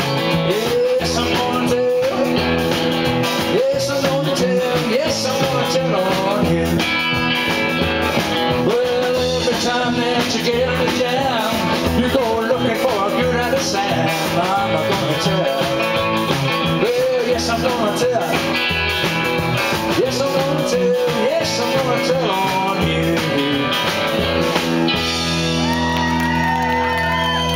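Live rock and roll band playing electric guitar and bass with a steady beat, closing about 25 seconds in on a held final chord that rings on.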